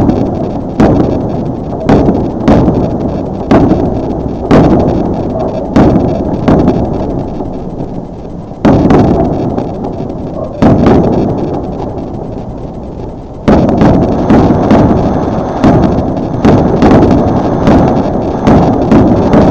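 Fireworks bursting in a series of loud booms, each followed by a long rumbling decay, about one a second. There is a slower stretch in the middle, and the bursts come faster about two-thirds of the way in.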